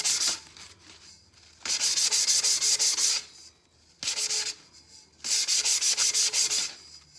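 100-grit sandpaper scuffing a stainless steel tumbler, rubbed in quick back-and-forth strokes in four bouts with short pauses between them.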